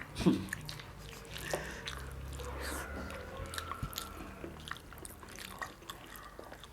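A person chewing food close to the microphone, with many small mouth clicks and smacks.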